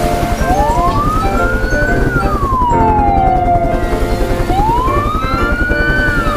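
Emergency-vehicle siren wailing, sweeping slowly up and down twice, over music with a fast pulsing beat.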